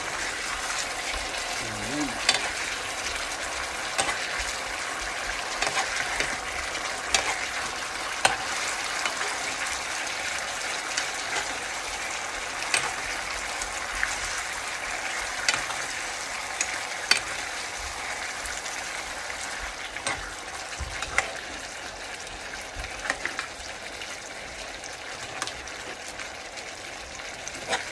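Tomato sauce simmering with a steady sizzle in a frying pan as a metal spoon scoops it up and pours it back over beef shank. Light clinks of the spoon against the pan come every second or two.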